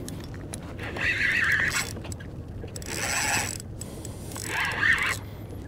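Spinning fishing reel buzzing in three short spells while a hooked tautog is fought on the line.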